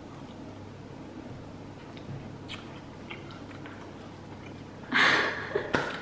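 Soft chewing and mouth clicks from people eating chewy sour candy strips. About five seconds in, a sudden loud burst of laughter with a sharp hand clap.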